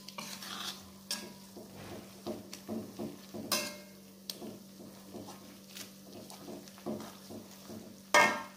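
Metal spatula scraping and knocking against a wok, stirring ground spice paste as it fries in oil, in short irregular strokes with one louder knock near the end.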